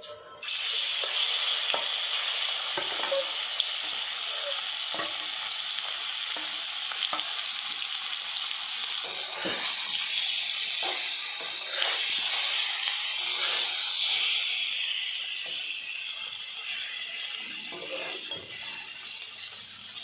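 Masala-marinated fish pieces hitting hot oil in a metal wok and sizzling, starting suddenly about half a second in and easing off toward the end. A spatula scrapes and turns the pieces in the pan.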